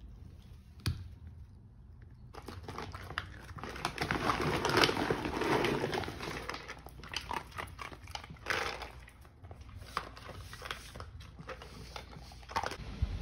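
Dachshunds eating dry kibble from steel bowls: a dense run of crunching and clicking as they chew and their muzzles knock the kibble about in the bowls. A single sharp click comes about a second in, before the eating starts.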